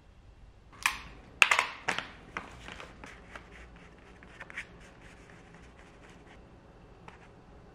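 Paper being handled, with a few loud crinkling crackles in the first two seconds, then faint scratches and light taps of a paintbrush working on a brown kraft paper gift bag.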